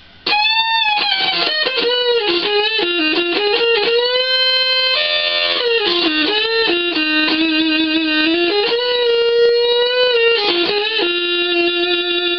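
Electric guitar played through the NPN side of a breadboarded Schumann Two Face fuzz circuit: heavily fuzzed single-note lines with pitch bends and long sustained notes, starting suddenly just after the beginning.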